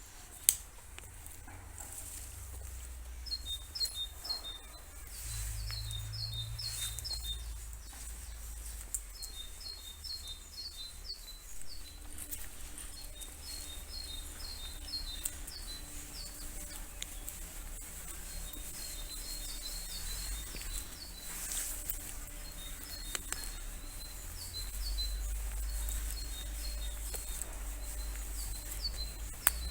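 A songbird singing short phrases of several quick, falling high notes, repeated every two to three seconds, over a low rumble. There is a sharp click about half a second in.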